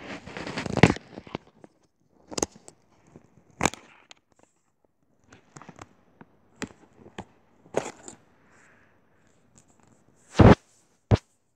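Handling noise from a hand-held phone: fingers rubbing over it, then scattered knocks and bumps against it, the loudest two near the end.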